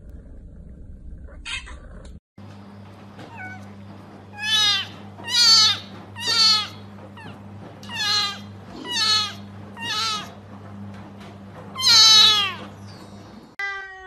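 Orange kitten meowing loudly and insistently: seven high cries, each falling in pitch, about a second apart, over a steady low hum. Just before the end a different cat gives one short meow.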